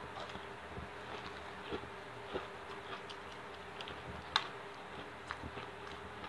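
Quiet close-up eating sounds: onion rings being chewed, with small scattered mouth clicks and one sharper click about four seconds in, over a steady faint hum.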